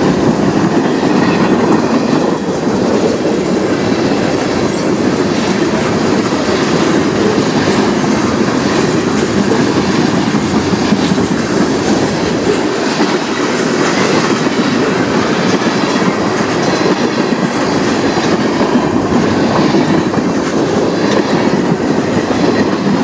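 Manifest freight train passing close by: a steady loud rumble of steel wheels on the rails, with clickety-clack of wheels over rail joints.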